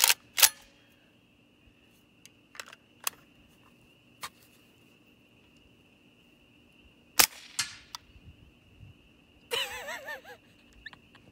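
Suppressed AK-pattern rifle firing a string of shots, each a short sharp crack, the loudest near the start and about seven seconds in, with quieter clacks between. A woman laughs near the end.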